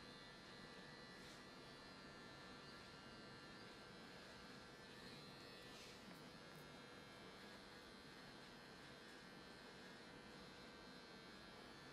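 Near silence: a faint steady hum and hiss of room tone.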